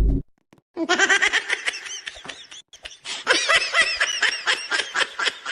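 High-pitched laughing in quick pulses, starting about a second in with a brief break partway through. A loud, deep sound cuts off right at the start.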